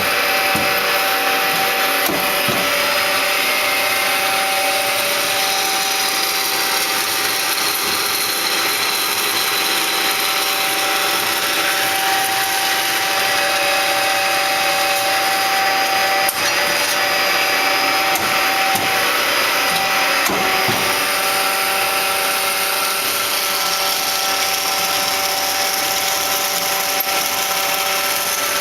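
A 1987 DoALL C260A automatic horizontal metal-cutting bandsaw running under power: a steady machine noise with a constant whine that holds its pitch.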